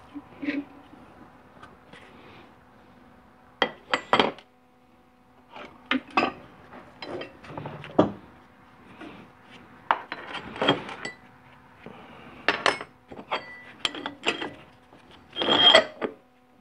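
Metal tool parts and fittings clinking, knocking and scraping against an aluminium 4L60E transmission case as a spring compressor is set up on it, in irregular clusters of sharp clinks, loudest about four seconds in and near the end.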